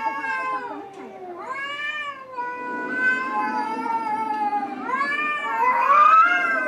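Domestic cats yowling at each other in a face-to-face standoff: a run of long, wavering yowls, one after another, the last rising and the loudest near the end.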